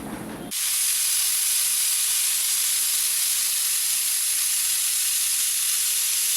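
Pressure cooker whistle blowing: steam rushes out of the weight valve in one steady hiss that starts abruptly about half a second in. This is the sign that the cooker has reached full pressure.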